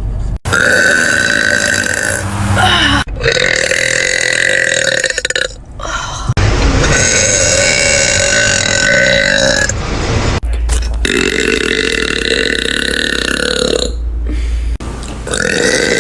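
A woman letting out a series of long, deep, deliberate burps: about five in a row, each held steady for two to three seconds, with short pauses between them.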